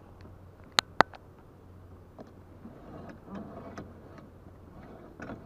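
Two sharp clicks about a second in, a fraction of a second apart, followed by a few faint taps, as a hand handles the plastic rudder-control lever of a sailing kayak.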